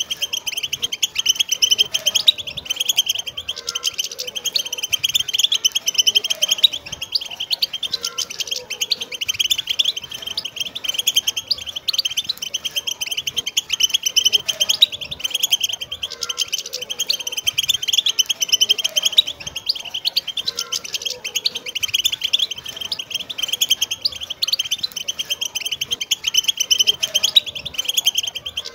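A flock of wild European goldfinches chattering together: a dense, unbroken twittering of many rapid, high notes overlapping.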